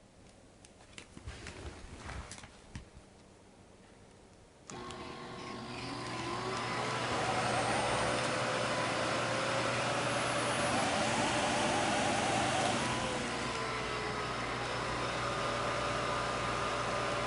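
A few light clicks and knocks, then about five seconds in a SHARP EC-WX310 cyclone vacuum cleaner switches on, its motor spinning up with a rising pitch over a couple of seconds and then running steadily.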